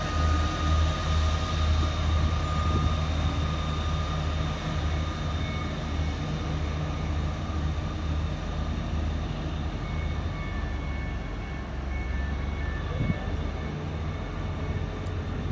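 Northern multiple-unit passenger train pulling away, a low pulsing rumble with a faint whine above it, slowly fading as it draws off.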